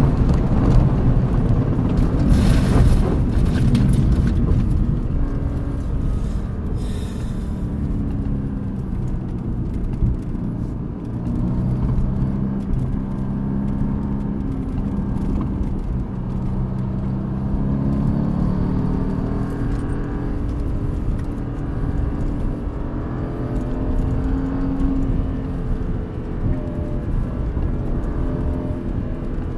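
Mercedes-AMG GT C's twin-turbo V8 heard from inside the cabin, with heavy road and wind noise as the car slows hard from high speed and a few short bursts of rough noise in the first seconds. The engine then pulls through the gears at moderate speed, its note rising and dropping with each shift.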